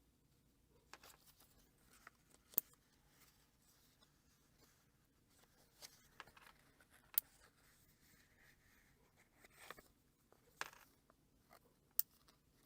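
Faint rustling and shuffling of loose book pages being handled and lined up, with three sharp clicks or taps spread through.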